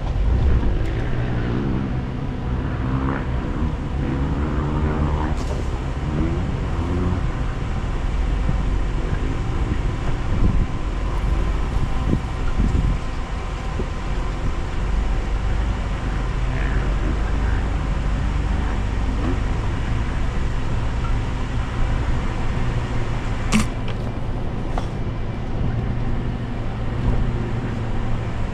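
Mitsubishi Montero's engine running at low speed as the SUV crawls along a rutted dirt off-road trail, with one sharp knock late on.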